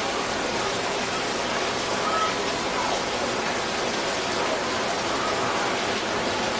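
Steady hiss of heavy rain, with faint distant voices.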